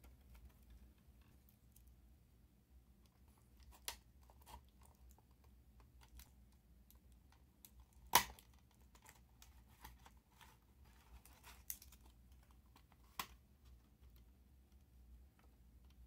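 Scattered small plastic clicks and taps from handling a Sony D-E200 Discman's casing and battery compartment cover, the sharpest about eight seconds in.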